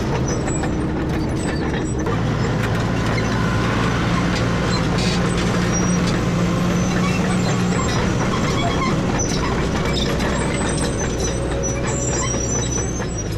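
CAT D5K dozer's diesel engine running steadily under work, its note shifting a little about two seconds in.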